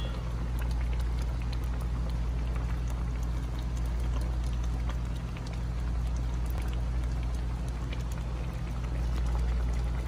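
Shrimp in coconut-milk sauce simmering in a pan, the sauce bubbling with many small light pops, over a steady low hum.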